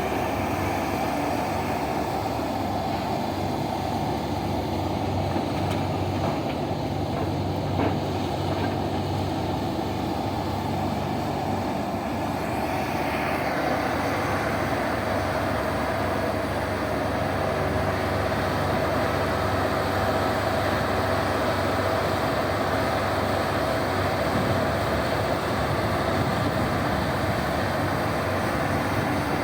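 Big diesel engines of a mining excavator and haul trucks running steadily under work, with one short knock about eight seconds in and the engine noise growing a little after about thirteen seconds.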